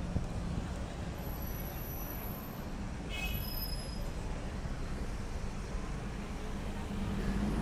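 City traffic noise: a steady low rumble of passing vehicles, with a short, faint, high-pitched sound about three seconds in.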